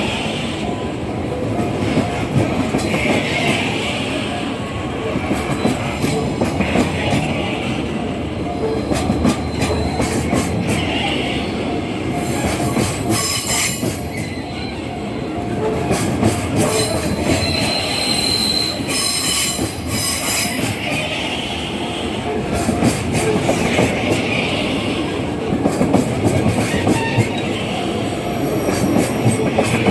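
Freight train hauled by a JR Freight EH500 electric locomotive rolling past at close range: a steady rumble of wagon wheels on rail, with clickety-clack over the rail joints and wheel squeal, and bursts of louder clattering about halfway through.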